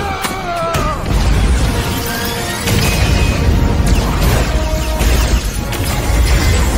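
Battle-scene soundtrack: music over a dense mix of explosion and impact effects, with a deep low rumble throughout.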